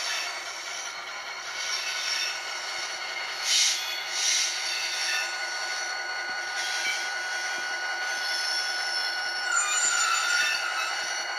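Model diesel locomotive's DCC sound decoder playing a running diesel engine through the model's small onboard speaker as the locomotive creeps forward, with two short hisses a few seconds in and a wavering rail squeal effect near the end.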